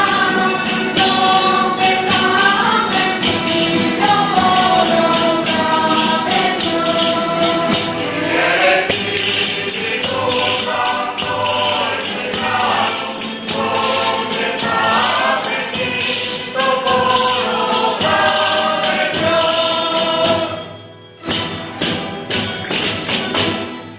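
A group of Despertadores singing a traditional dawn song together to a steady jingling percussion accompaniment. The song breaks off about 21 seconds in.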